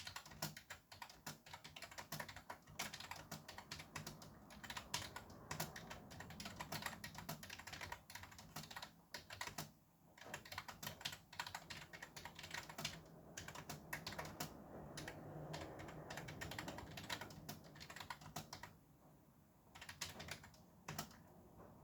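Fast typing on a computer keyboard: a dense run of key clicks with a couple of short pauses, about ten seconds in and near the end. Steady traffic noise underneath.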